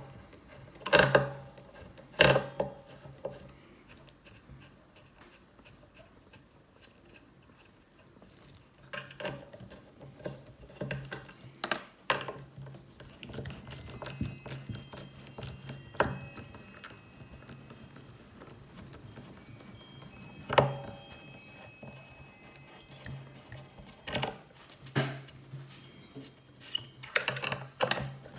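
Screwdriver backing the neck screws out of a bolt-on guitar neck: scattered clicks and knocks of the driver and the guitar being handled, with faint squeaks as the screws turn in the wood, over a low steady hum.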